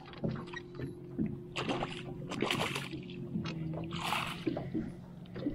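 A hooked walleye thrashing and splashing in a landing net at the side of an aluminum boat, with knocks and clatter of the net and rod against the hull. The splashing comes in two spells, one near the middle and a shorter one later. A steady low drone runs underneath.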